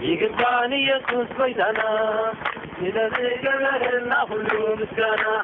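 A man's voice loudly giving thanks to God in a sing-song, chant-like delivery, holding pitches for a moment between phrases, in a language other than English. The sound is thin and cut off at the top, as from a phone recording.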